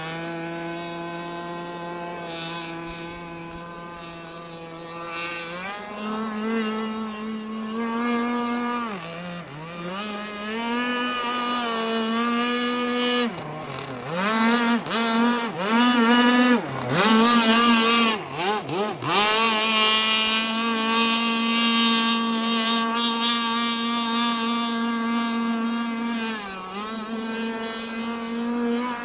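Motor of a Staufenbiel F1 radio-controlled racing catamaran running at speed, a steady whine whose pitch rises and falls with the throttle. Several quick drops in pitch come in the middle along with a burst of hiss, then it holds steady again.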